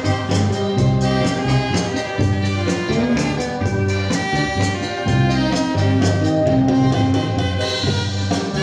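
Kuratsa dance music with a steady beat, played loud over a mini sound system.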